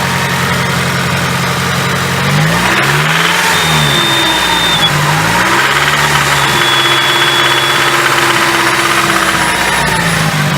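Nissan SR20DET turbocharged 2.0-litre four-cylinder idling, revved up and back down twice. The engine has picked up rod knock from a worn rod bearing.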